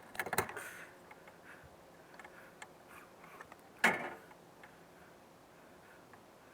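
Light handling clicks and knocks of work on wiring and tools, with a short clatter at the start and one sharp knock a little before four seconds in.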